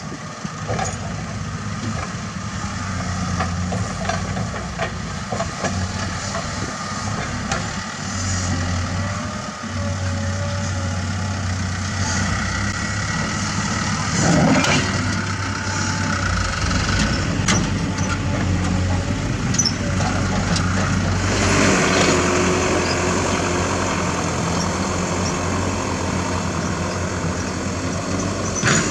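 Diesel engines of heavy construction machinery, an excavator and dump trucks, running with a steady low hum, wavering higher whines over it. A louder rush of noise comes about halfway through and again about two-thirds of the way in.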